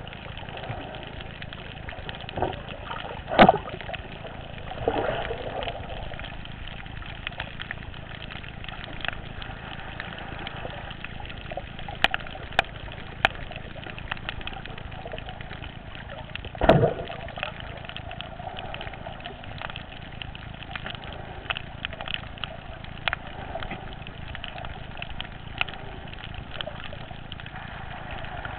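Underwater sound on a coral reef: a steady hiss with sharp clicks scattered through it, and louder thumps about three and a half and seventeen seconds in. In the last third, a reef fish is crunching on coral as it bites off pieces, heard as a run of sharp clicks.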